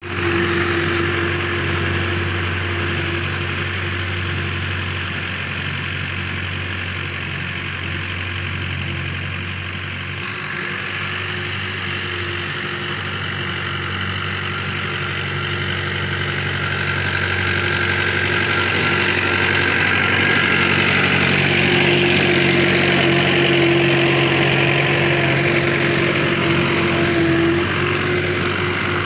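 Mahindra Sarpanch tractor's diesel engine running steadily under load, pulling a tine cultivator through hard ground. The engine grows louder in the second half.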